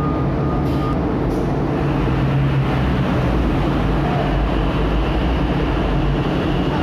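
Heavy diesel truck engines running as they roll off a ship, a steady loud rumble. A thin high whine stops about a second in.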